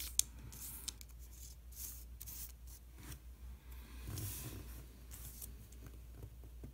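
Faint rubbing and rustling as silicone sealant is squeezed from a plastic tube and its nozzle is drawn across wax paper, with a sharp click just after the start and a smaller one about a second in.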